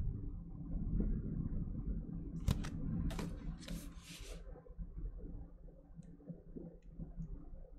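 Handling noise from a cardboard LP record jacket being held and turned close to a microphone: low rumbling bumps throughout, with a few short sliding, rustling swishes about two and a half to four and a half seconds in.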